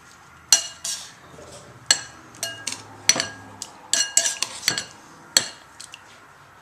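Metal utensil clinking and tapping against a bowl as a steak is turned in its marinade: about a dozen irregular sharp clinks, several with a short ring.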